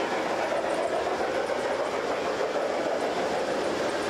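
G-scale model train rolling along its track, a steady running clatter of wheels on rail.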